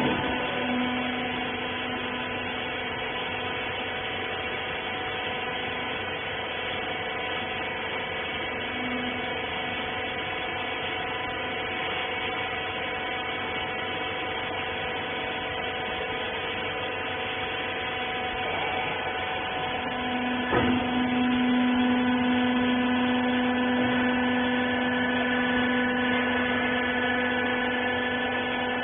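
Wiper baler's hydraulic power unit running with a steady, even hum. A sharp click comes about 20 seconds in, and the hum then grows louder.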